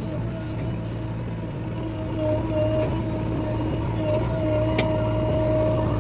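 A JCB excavator's diesel engine runs steadily with a low drone. Over it is a higher steady whine that drops out and comes back a few times.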